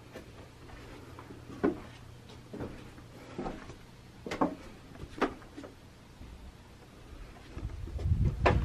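Footsteps on a wooden deck: a series of separate knocks, under a second apart, then a low rumble near the end.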